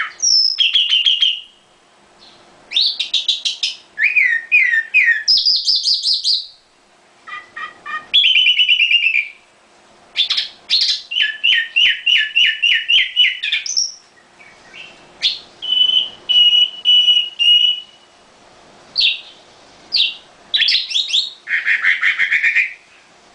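Caged nightingale singing: a run of varied phrases of rapid trills and quickly repeated notes, one phrase a series of pure whistled notes, with short pauses between phrases.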